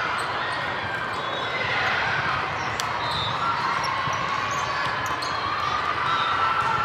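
Steady, echoing din of a large hall full of volleyball courts: many overlapping distant voices, with the occasional thud of a ball bouncing on the floor and one sharp knock about three seconds in.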